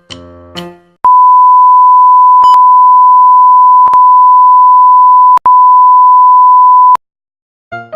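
A single steady, loud pure beep tone, the standard censor bleep sound effect, held for about six seconds with a few brief clicks and a tiny break partway through. The last piano notes of a jingle fade out in the first second.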